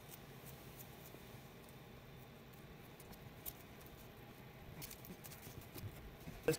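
Faint crackling and rustling of blue masking tape being pressed onto windscreen glass over a glued mirror base, busier near the end, with a sharp click just before the end, over a low steady hum.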